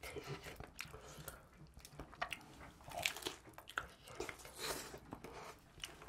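Crunching bites and chewing of thin, crisp-baked pizza crust, a string of irregular crackles.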